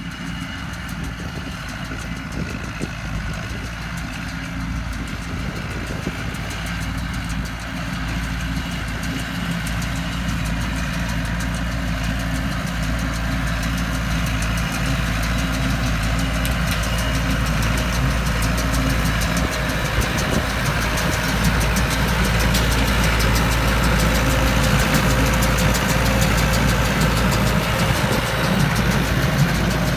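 Farm tractor's diesel engine running steadily while it pulls a small-square baler through the hay, growing gradually louder as it draws nearer.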